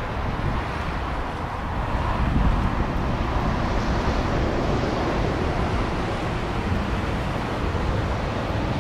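Twin jet engines of a Boeing 737 airliner running at high power as it rolls down the runway, heard from the side of the airfield as a steady rushing noise that grows louder about two seconds in and then holds.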